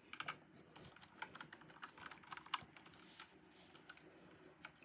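Faint, scattered light clicks and taps from hands handling the phone and picture cards, irregular and quiet.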